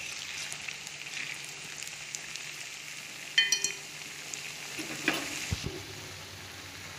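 Batter-coated cauliflower deep-frying in hot oil, a steady sizzle. A spatula stirring the pieces gives a short metallic clink about three and a half seconds in and a light knock around five seconds.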